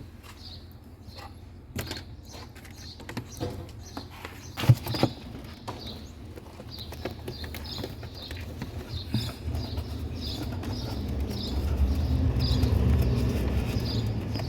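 Scattered small clicks and rustles of plastic cable ties and wiring being handled while a refrigerator's wiring harness is tied down. A low rumble builds in the second half and is loudest near the end.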